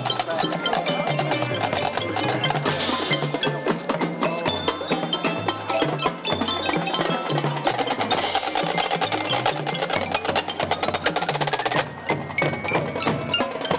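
High school marching band playing its field show: winds over a stepping bass line, with drums and mallet percussion striking throughout. Two louder crashes come about three and eight seconds in, and the sound thins out about twelve seconds in.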